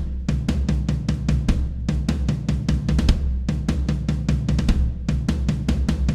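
A drum kit played alone in a fast, driving rock beat, with kick drum, snare and cymbals. It comes in sharply at the start after a brief gap.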